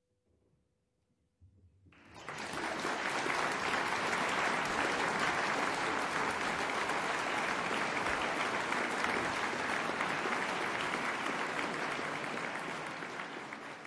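The last piano note fades out, then a concert audience breaks into applause about two seconds in: steady, dense clapping that starts to fade near the end.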